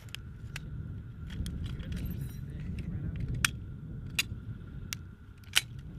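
Sharp metallic clicks and clanks of a belt-fed machine gun being handled after firing, as its feed tray cover is opened, over a steady low rumble. Four clicks come in the second half, the last one the loudest.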